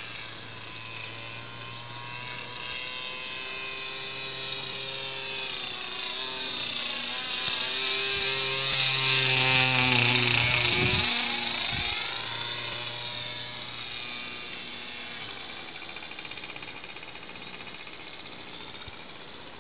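Radio-controlled model airplane flying by: the whine of its motor and propeller grows louder, peaks as it passes overhead about ten seconds in, then drops in pitch and fades.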